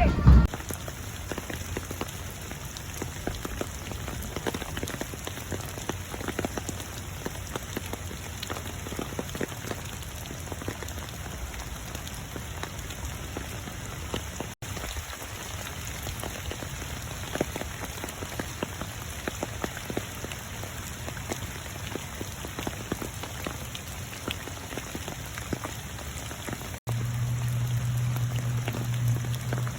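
Steady rain falling on a hard surface, with many separate drops pattering. Near the end a steady low hum joins the rain.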